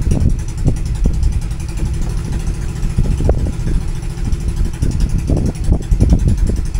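Outrigger boat's engine running low and steady, mixed with gusty wind buffeting the microphone.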